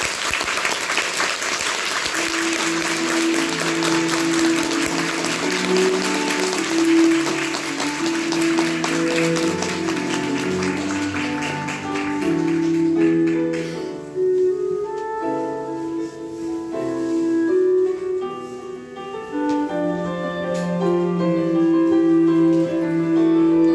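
Audience applauding over piano music. The applause dies away a little past halfway, leaving the piano playing alone.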